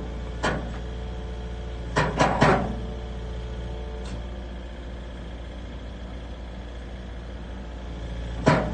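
Engine running steadily, with short bursts of rattling and clanking from the moving vehicle about half a second in, around two seconds in and again near the end.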